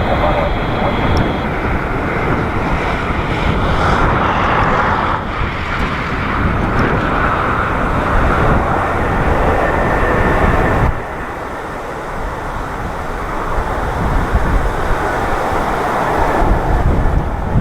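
Large jet airliner's engines running loud, mixed with gusty wind on the microphone; the sound drops abruptly about eleven seconds in.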